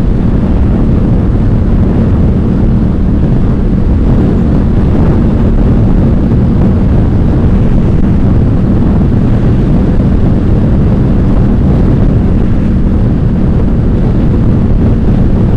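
Yamaha FZ-07 (MT-07) 689 cc parallel-twin engine running through an aftermarket Ixil L3XB exhaust at a steady cruise, engine note holding even throughout.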